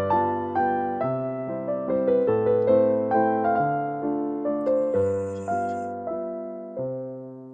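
Background solo piano music: a gentle melody of single struck notes, each fading away, a few notes a second.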